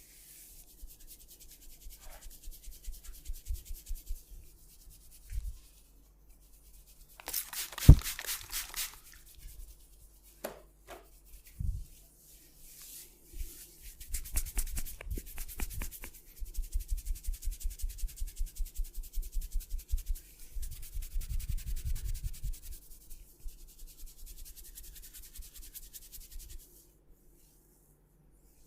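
Hands rubbing and patting a person's head and skin in a massage. In the middle there are quick rhythmic pats, about five a second, and about eight seconds in comes one sharp snap, the loudest sound.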